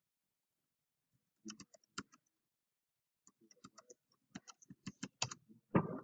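Scattered computer keyboard and mouse clicks, a few about a second and a half in and then a quicker run of clicks through the second half.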